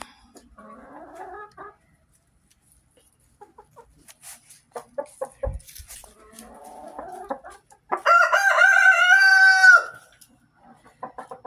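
Rooster crowing once about eight seconds in, one long call held for about two seconds, the loudest sound here. Before it, chickens clucking softly, with a few light taps.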